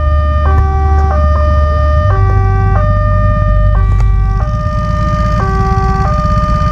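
Electronic warning alarm of a railway level crossing, signalling that a train is coming. It plays a repeating figure of steady tones that step up and down in pitch, the figure starting over about every one and a half seconds, with a steady low rumble underneath.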